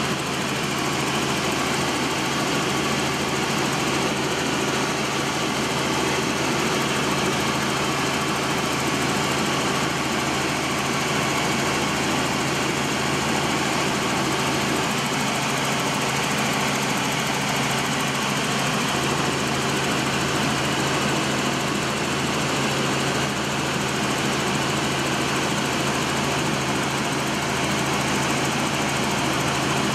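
Light helicopter in flight, heard from inside the cabin: the engine and rotors make a steady, unchanging drone with a constant hum and a wide rushing noise over it.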